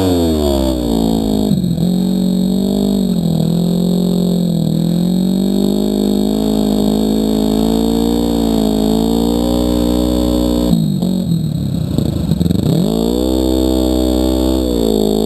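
Snowmobile engine running hard under the rider, its steady buzzing note dipping and climbing with the throttle several times, with one deep drop and recovery about three-quarters of the way in.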